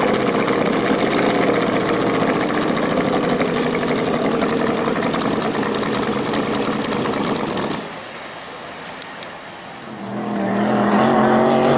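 Vintage race boat engines running at racing speed, a loud, dense engine noise that cuts off suddenly about eight seconds in. After a quieter couple of seconds, another boat's droning engine note swells in near the end.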